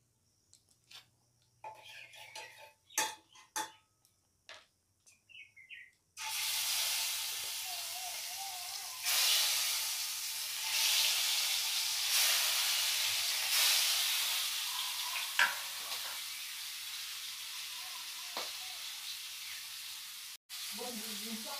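Boal fish steaks frying in hot oil in a kadai: a sizzle breaks out about six seconds in and swells several times as more pieces go into the oil, then settles to a steadier frying hiss. Before the sizzle there are a few light knocks.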